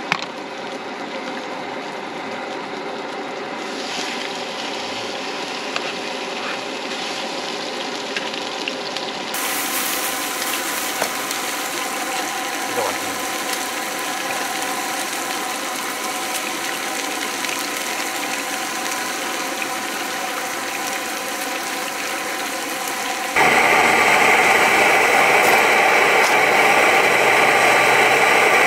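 Pork in broth bubbling and sizzling in a shallow pan on a portable gas burner, a steady hiss. Near the end a louder, closer bubbling of thick orange sauce boiling hard in a small metal pot.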